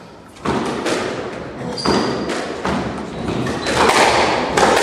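Squash rally: the ball struck by rackets and smacking off the court walls, a run of sharp hits every half-second to a second, starting about half a second in.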